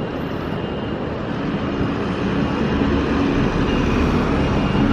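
Steady rumble of city street traffic, with a low engine hum joining about a second and a half in.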